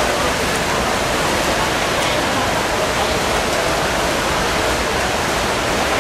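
Steady din of a swimming race: swimmers splashing in the pool under a wash of spectators' shouting and cheering, with no single sound standing out.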